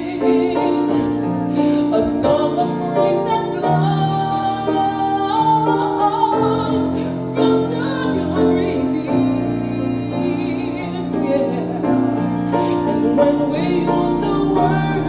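Slow piano-accompanied ballad music, with sustained notes and a flowing melody line.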